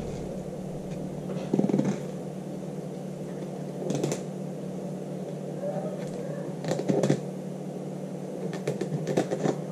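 Fillet knife cutting along a fish's rib cage on cardboard: short scraping and clicking cuts about one and a half, four, seven and nine seconds in, over a steady low hum.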